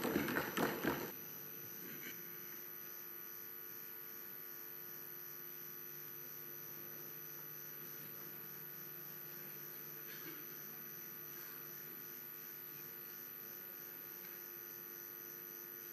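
Steady electrical hum made of several fixed tones, unchanging, after a man's voice trails off about a second in.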